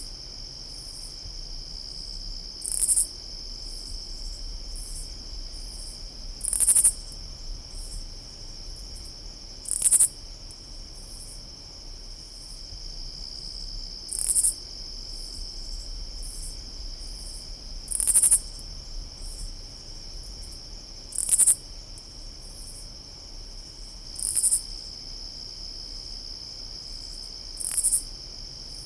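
A single katydid calling in short, loud, high-pitched bursts about every three to four seconds, over a steady continuous trill of crickets.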